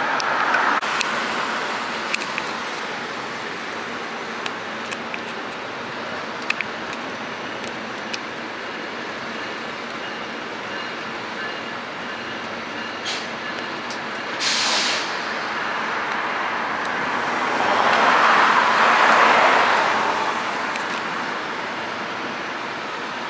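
Street traffic with city buses: a steady drone of vehicles, with a brief hiss of air about two-thirds through and a vehicle passing close near the end.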